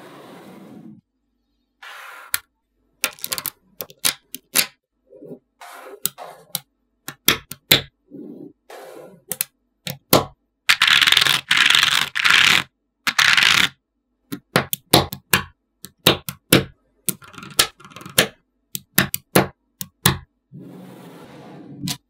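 Small magnetic balls clicking and snapping together in quick, irregular bursts of sharp clicks, with a stretch of dense rattling and scraping around the middle as many balls shift at once.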